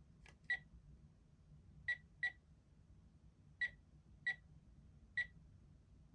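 Short electronic beeps of a supermarket checkout scanner, seven of them at irregular intervals over about five seconds, the first one faint.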